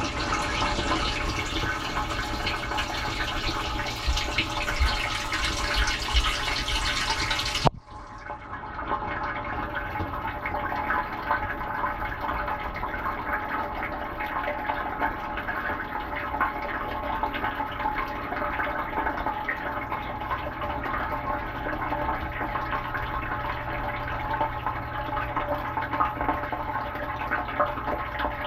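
Dishwasher running, water spraying and splashing inside the wash tub, heard from within. About eight seconds in, the loud spray cuts off abruptly. A quieter, steady wash noise with a low hum follows.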